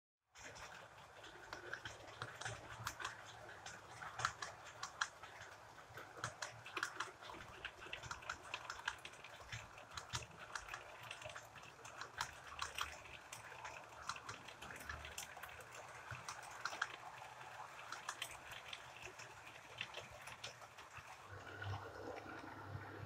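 HO-scale model train running past on sectional track, its coach wheels giving a steady stream of light, irregular clicks over a low hum. Near the end the hum and a middle-pitched drone grow louder as the model FS E444 electric locomotive comes by.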